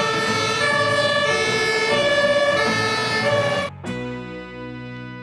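Fire engine's two-tone siren, alternating between a high and a low note about every half second, cutting off abruptly a little over three and a half seconds in. Quieter background music follows.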